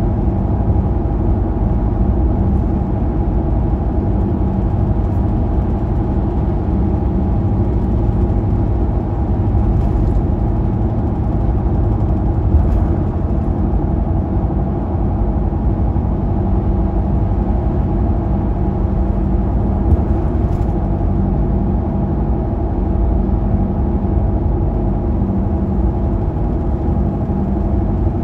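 Car driving at highway speed: a steady drone of engine and road noise with a constant low hum, and a few faint knocks.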